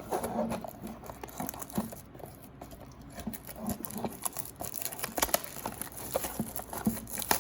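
Trading-card blaster box packaging being handled and opened: a run of small taps and clicks with crinkling and tearing of cardboard and plastic wrap.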